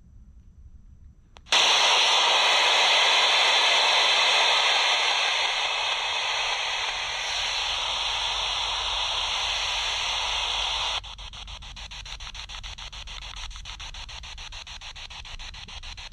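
SP7 spirit box switching on about a second and a half in with loud radio static hiss. Near the end it drops to quieter static that chops rapidly and evenly as the box sweeps through radio stations.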